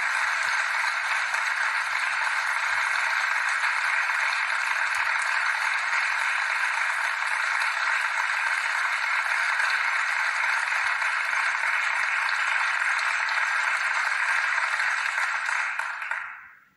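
A steady, even rushing noise with no pitch or rhythm, played from the cartoon's soundtrack through the computer's speakers, that fades out near the end.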